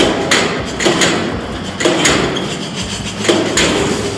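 Irregular metallic bangs and knocks from work on the factory floor, over a steady low machine hum.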